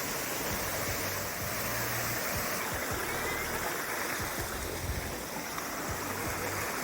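Steady rushing of a river's flowing water, a continuous even noise.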